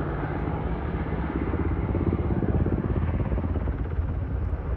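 Freight train passing: a loud, steady low rumble with a fast, even pulse.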